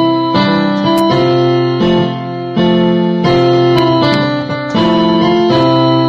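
Background piano music, a new chord struck every half second to a second.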